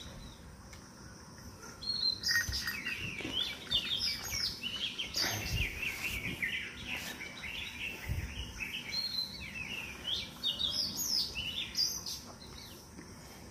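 Small birds chirping and twittering in quick, busy runs of short high notes, starting about two seconds in and thinning out near the end. A couple of dull low thumps come in the middle.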